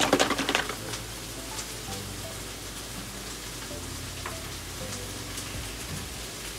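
A carton of liquid egg whites shaken hard with quick rhythmic sloshes, then a steady splashing hiss as a stream of egg whites pours from the carton into a foil baking pan.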